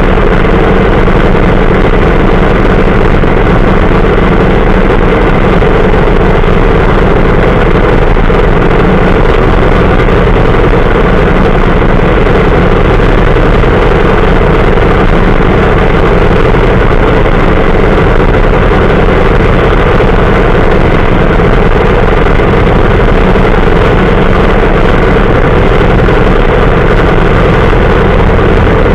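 Allis-Chalmers B tractor's four-cylinder engine running loud and steady at an even speed while the tractor drives along a dirt track.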